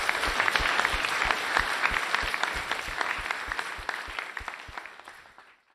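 Audience applauding, a dense patter of clapping that fades away toward the end.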